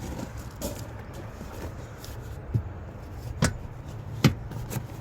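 Four sharp clicks and knocks, spaced irregularly through the second half, over a steady low rumble.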